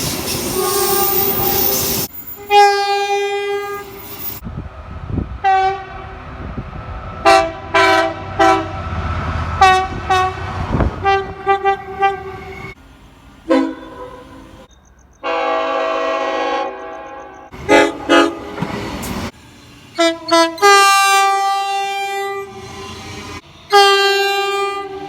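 Locomotive air horns sounding a series of short and long multi-note blasts. Several different horns are heard, with abrupt changes between them, and rushing noise from a passing train in places.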